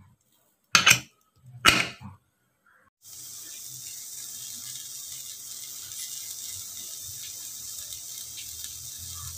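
Two loud metal clatters as the aluminium pressure cooker's lid and whistle weight are fitted. About three seconds in, a steady hiss takes over as the closed cooker heats on the stove burner.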